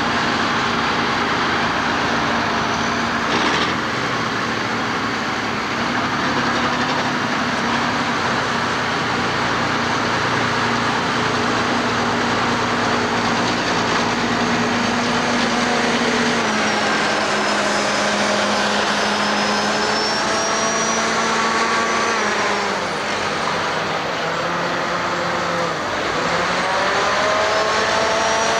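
Diesel engines of heavy dump trucks running under load across a construction site: a steady engine note for the first half, then revs rising again and again through the gears, climbing sharply near the end as a machine pulls away close by.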